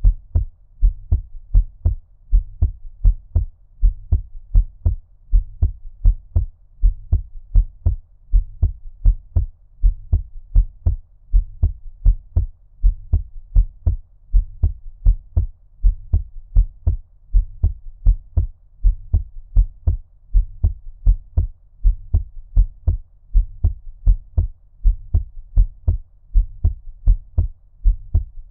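Human heartbeat at a normal resting rate, each beat a low, muffled two-part lub-dub thud, as if heard underwater, repeating in a steady, even rhythm.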